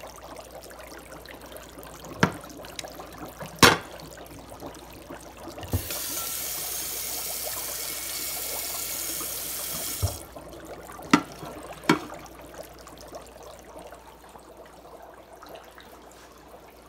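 Dry ice bubbling in a sink of water: a steady low fizzing trickle, broken by a few sharp knocks. About six seconds in, a loud steady hiss starts suddenly, runs for about four seconds and cuts off.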